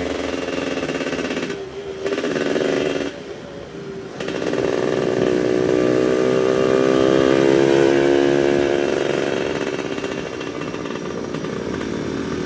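Suzuki F1ZR 110cc two-stroke motorcycle engine running under throttle with a rough, snoring exhaust note. It drops off twice briefly in the first four seconds, then the revs climb slowly and hold before easing down near the end.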